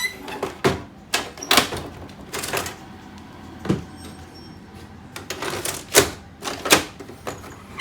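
Plastic clicks and knocks from handling a Canon MF3010 laser printer's toner cartridge, taken out and a replacement put in: a dozen or so sharp, irregular clicks.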